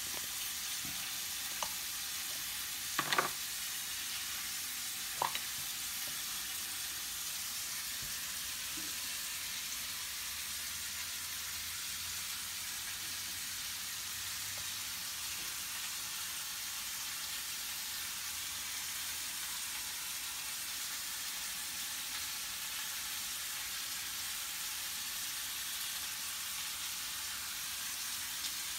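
Marinated pork chops sizzling steadily as they grill, with a few light clicks in the first few seconds.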